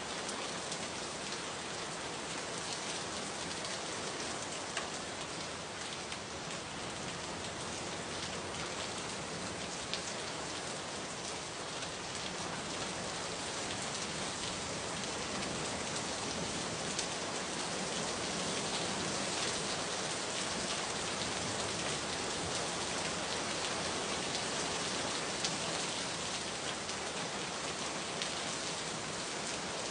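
Steady rain falling: an even hiss scattered with many small drop ticks.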